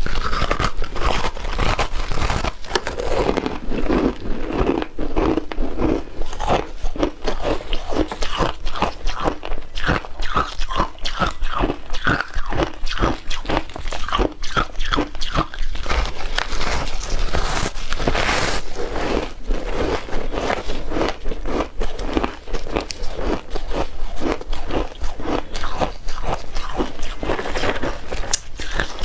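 Biting and chewing of powder-coated frozen ice chunks, close to a clip-on microphone: a rapid, continuous run of crisp crunches as the ice is broken between the teeth.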